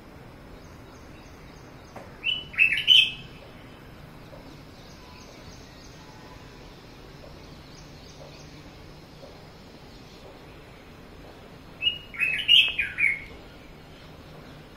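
Red-whiskered bulbul singing: two short phrases of several quick notes each, about ten seconds apart.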